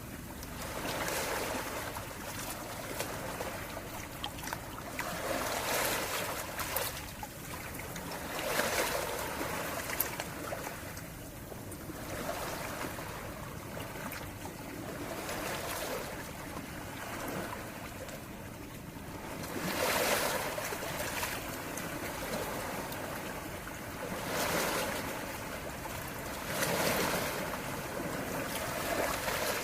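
Calm sea waves washing in and out, a steady rush that swells every few seconds, with a quieter lull in the middle.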